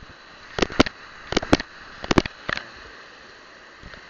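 Handling noise from fingers tapping and rubbing on a phone in a waterproof pouch, close to its microphone: about seven sharp clicks, several in quick pairs, in the first two and a half seconds.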